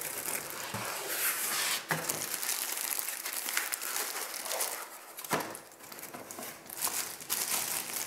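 Packaging rustling and crinkling as a device is pulled from its cardboard box out of a foam sleeve and a plastic bag. There are two sharp knocks, one about two seconds in and a louder one about five seconds in.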